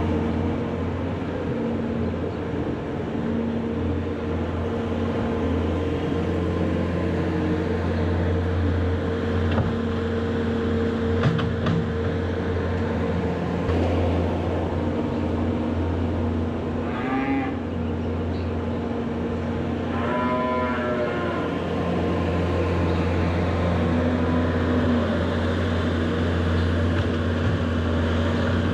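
A farm machine's engine running steadily, with cattle mooing twice partway through.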